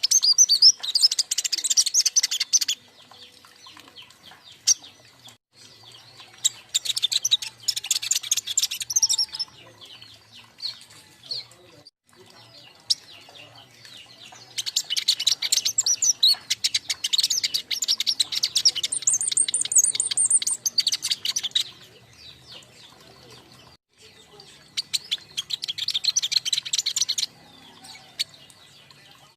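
King konin songbirds, a group of young birds, singing in bursts of rapid, high chattering notes, four bursts with short pauses between them.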